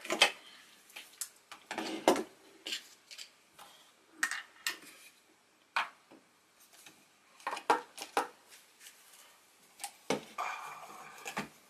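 Irregular small clicks and taps of a metal screwdriver and hard plastic parts being handled while working at the tiny battery-compartment screw on a plastic action figure.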